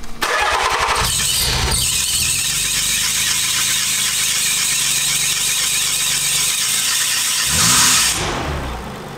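Nissan 300ZX's VG30DE V6 cranking and catching, then running with its accessory belts squealing loudly and steadily; a short blip of revs near the end, after which the squeal cuts off. The belts have not yet worn in.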